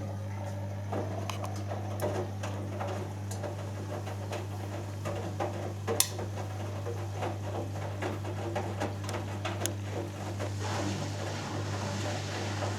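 Hoover Dynamic Next washing machine at the start of an interim spin: a steady low hum, likely the drain pump, under the patter and small knocks of laundry and water in the turning drum, with one sharper click. Near the end a rushing sound grows as the drum begins to speed up.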